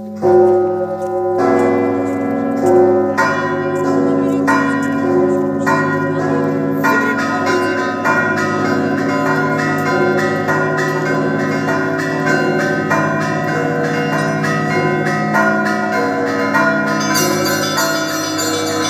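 Russian Orthodox church bells ringing a peal. It begins about a third of a second in with spaced strokes of the larger bells, roughly one every second and a half. After about seven seconds it quickens into dense, rapid ringing, and higher, smaller bells join near the end.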